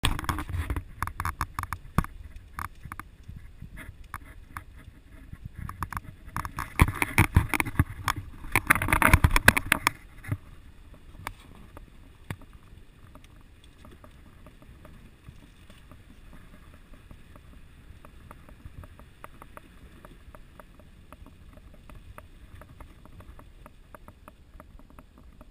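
Vehicle driving slowly on a rutted, rain-soaked mud road, heard from inside the cab: a steady low rumble with many clicks and knocks. The knocks are busiest and loudest in the first ten seconds, then thin out to a quieter patter.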